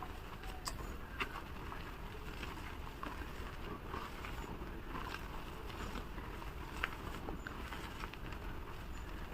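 Blocks of gym chalk being crumbled and crushed, sped up: a continuous crunchy crackle with scattered sharp snaps.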